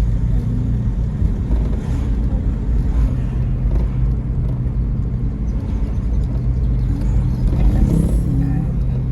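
A car's engine and road noise heard from inside the cabin while driving: a steady low rumble with an even engine hum.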